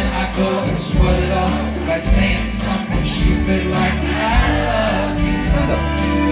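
Live band music with guitar and bass, played steadily, with a voice singing over it in places.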